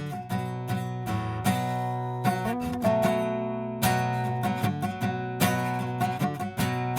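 Outro music of strummed acoustic guitar chords.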